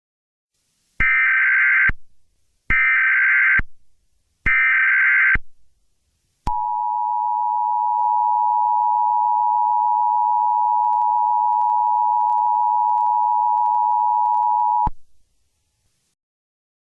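Emergency Alert System opening tones: three short buzzing bursts of SAME header data, each about a second long, then the two-tone EAS attention signal held steady for about eight seconds before cutting off.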